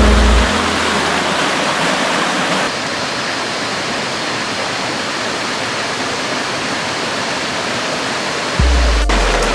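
Steady rush of flowing water from a stream or waterfall. A music track's low bass fades out about half a second in and comes back near the end.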